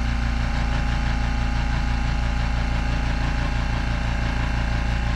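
Makita 1/2-horsepower, one-gallon air compressor running steadily with an even, rapid pulsing hum. Its pump has cut in at about 90 psi and is refilling the tank.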